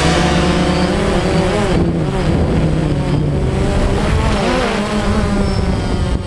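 DJI Phantom quadcopter's motors and propellers buzzing, their pitch rising and falling as the motor speeds change in flight.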